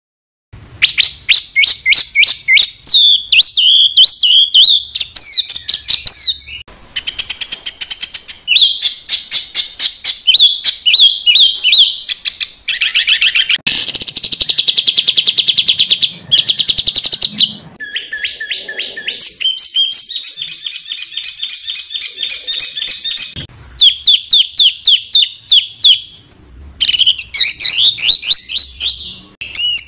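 Songbird song of the rapid-fire 'tembakan rapat' kind: dense trains of fast, repeated high staccato notes, starting about half a second in. The phrases come in several runs with short breaks between them.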